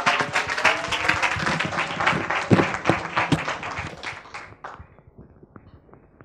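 Audience applauding, the clapping thinning out and stopping about five seconds in, followed by a few faint taps.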